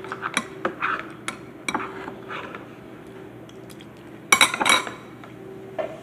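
Metal spoon clinking and scraping against a ceramic bowl while eating rice: a run of light clinks, then a louder clatter of spoon and bowl about four seconds in.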